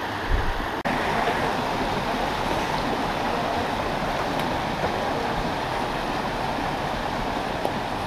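Small mountain stream running over rocks: a steady rush of water that drops out for an instant about a second in.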